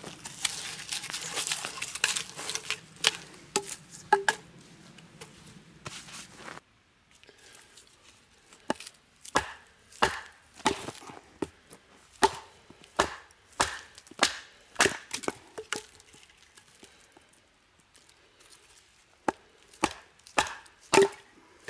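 Batoning firewood: a wooden baton knocking sharply on the spine of a Skrama bushcraft knife set in a short log, splitting it, many strikes about two a second. After a pause of a few seconds, a last run of knocks near the end.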